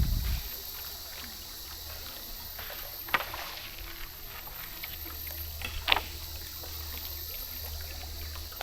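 Bamboo raft drifting on a slow river: a low, steady background of water with two short, sharp sounds, one about three seconds in and one about six seconds in.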